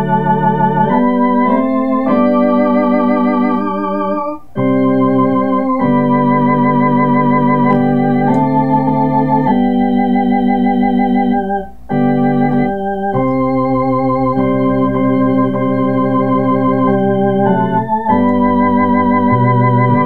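Two-manual electronic organ playing a sacred hymn in G major in full chords: held notes with a gentle vibrato over low bass notes, the chords changing every second or so. The sound breaks off briefly twice, about four and a half seconds in and again near twelve seconds.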